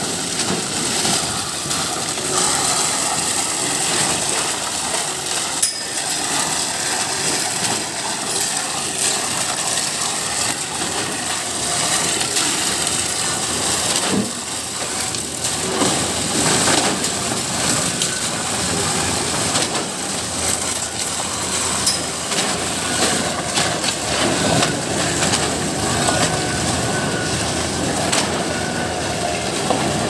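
Concrete boom pump running steadily while wet concrete pours from the boom hose onto the slab and is worked with shovels: a continuous mechanical noise with a few sharp clicks.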